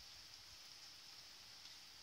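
Faint, steady hiss of heavy rain heard from indoors through a closed window pane, with a few faint ticks of drops.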